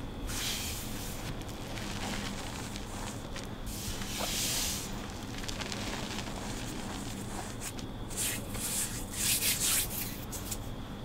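Hands squeezing and crumbling handfuls of reformed gym chalk into powder: dry, soft crunching and hissing. It comes in bursts about half a second in and around four seconds in, with a quicker run of sharper crunches near the end.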